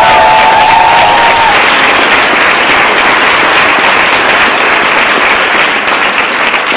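Audience applauding and cheering in a large hall, with a few voices calling out at the start. The clapping holds steady and eases a little near the end.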